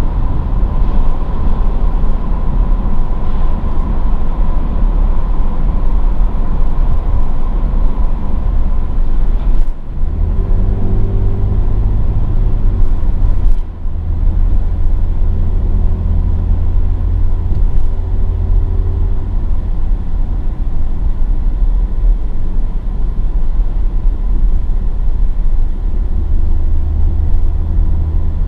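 Mercedes-AMG GLE 43's twin-turbo V6 running under way, a loud low rumble with road noise. The sound drops out briefly about ten and fourteen seconds in, and after each drop the engine note comes back fuller and steadier.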